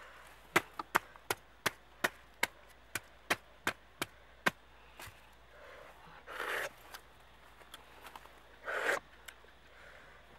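Heavy knife chopping into the fibrous husk of toddy palm fruit, about a dozen sharp strikes at roughly three a second, stopping after about four and a half seconds. Two short scraping rustles follow later as the fruit is handled.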